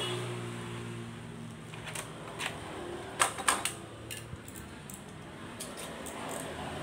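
Plastic bubble wrap rustling as it is spread across a wooden tabletop, with a handful of sharp plastic clicks and knocks a little past halfway as a toy gun is handled and set down on it. A steady low hum runs underneath.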